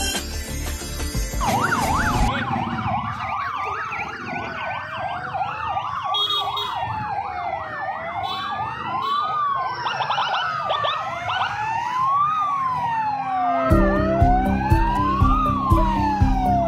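Several police car sirens wailing at once, their pitches rising and falling out of step with one another. Short intro music ends in the first two seconds, and loud music with a heavy beat comes in about 14 seconds in.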